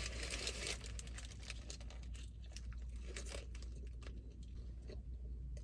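Close-up chewing and crunching of food, with irregular small mouth clicks, and a brief rustle at the very start; a steady low hum runs underneath.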